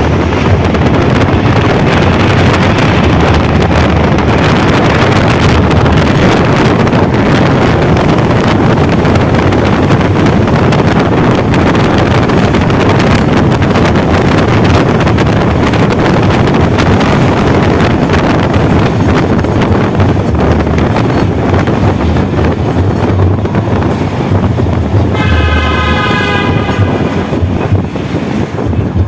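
Loud wind buffeting the microphone over the road noise of a moving vehicle. Near the end a horn sounds for about two seconds.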